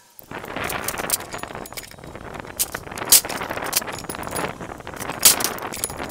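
Hand tools and metal parts clinking and rattling while a car's front lower control arm is being worked loose, with sharp metallic clanks about three seconds in and again about five seconds in.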